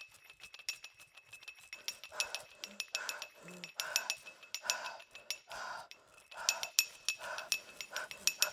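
Glass bottle struck again and again with a percussion stick, ringing with a high clear tone, several strikes a second. From about two seconds in, a softer rhythmic pulsing sound joins it.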